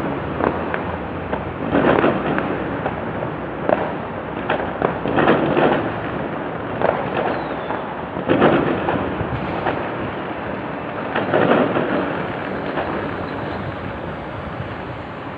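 Fireworks going off: a boom roughly every three seconds with scattered sharp cracks and a constant crackle between them, dying down slightly near the end. Recorded through an old phone's microphone, which dulls the top end.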